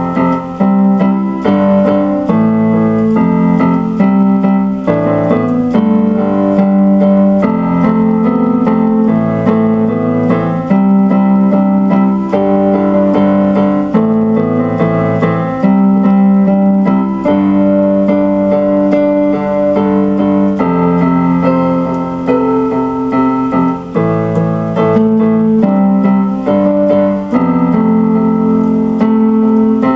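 Keyboard music: piano or electric piano playing held chords that change every second or two at an even, steady level.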